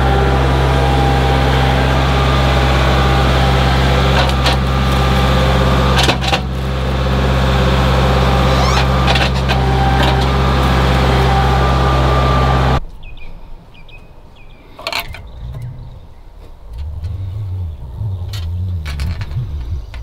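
Compact tractor engine running steadily close by while its grapple carries a log over the sawmill bed, with a few sharp clanks. The engine sound stops abruptly about 13 seconds in, leaving quieter knocks and rustling.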